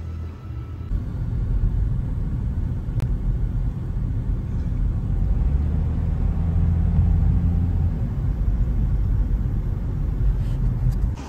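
Low, steady rumble of a car driving on a road, heard from inside the cabin; it gets louder about a second in.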